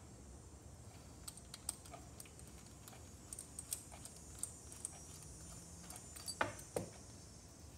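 Faint metal clicks and ticks from a socket on an extension being fitted to and turned on the small carburetor's fuel bowl bolt. A quick run of ticks comes about three to four seconds in, and two louder metal clinks follow about six and a half seconds in.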